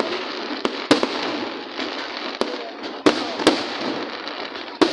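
Aerial fireworks bursting: about six sharp bangs at uneven intervals over a steady crackling haze.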